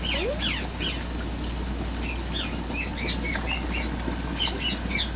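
Small birds chirping, many quick high chirps one after another, over a steady low hum.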